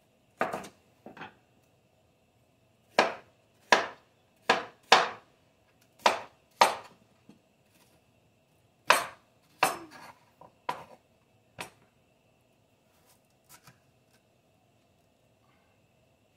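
Large kitchen knife chopping chayote on a wooden cutting board: about a dozen sharp, irregularly spaced knocks as the blade cuts through and strikes the board. They thin out to a few faint taps near the end.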